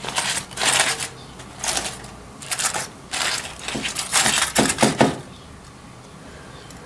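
Aluminium foil and thin plastic roasting film crinkling in a series of short bursts as they are pulled open by hand, stopping about five seconds in.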